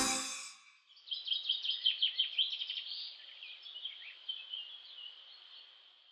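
The tail of the credits music dies away in the first half second; then a small songbird chirps and twitters in quick high notes, growing fainter and fading out near the end.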